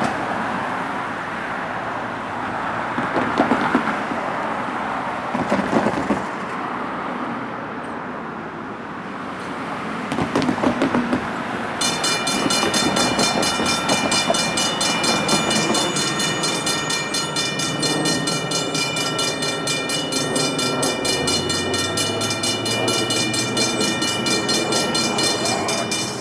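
A train rumbles by with clicks and clatter from its wheels. About twelve seconds in, a railroad bell starts ringing rapidly and steadily with a bright metallic tone, and keeps ringing.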